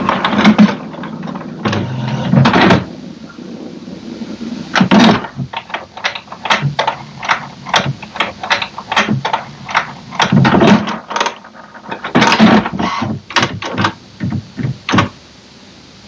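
HP Smart Tank 580/5100-series inkjet printer working through its level 3 printhead cleaning cycle: motor whirring and a series of clicks and clunks from the mechanism, in several bursts with short pauses, stopping about fifteen seconds in.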